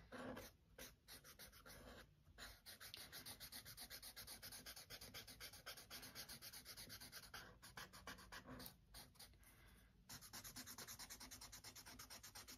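Faint scratching of a medium charcoal pencil rubbed over sketchbook paper in quick, even back-and-forth shading strokes, with brief pauses about two seconds in and again near ten seconds.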